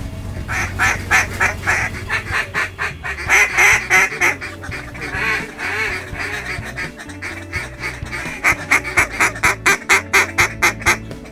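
Mallard quacking: loud quacks in uneven runs, then a fast string of about five quacks a second in the last few seconds, over a low steady hum.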